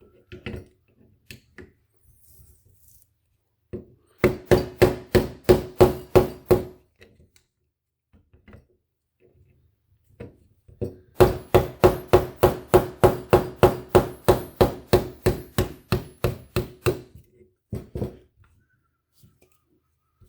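Small hammer tapping rapidly on a punch, about five taps a second, in two runs: a short run about four seconds in and a longer one of about six seconds near the middle. The tapping is typical of drifting a pin out of a pistol frame.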